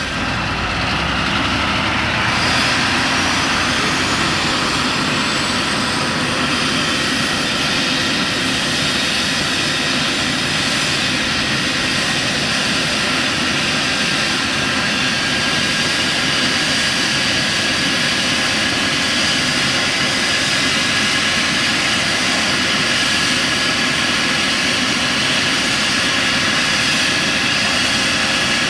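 Eurocopter EC135 helicopter running on the ground with its rotors turning: a steady turbine whine and rotor noise. A high whine rises in pitch over the first several seconds, then holds steady.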